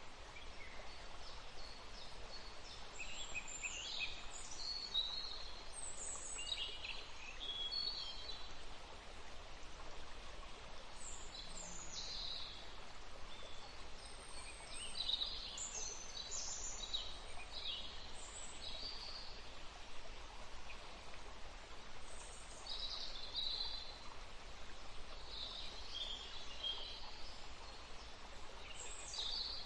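Songbirds chirping and calling outdoors, short phrases coming every second or two, over a steady low background noise.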